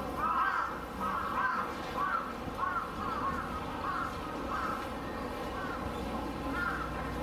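Crows cawing repeatedly, short calls following one another every half second or so over a steady low background rumble.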